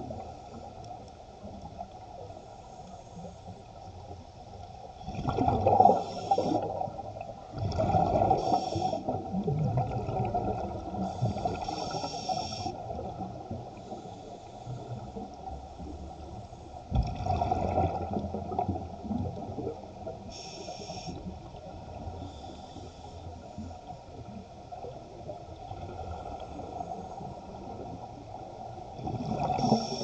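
Scuba regulator breathing heard underwater: exhaled bubbles gurgling and rumbling in bursts every few seconds, over a steady underwater hiss.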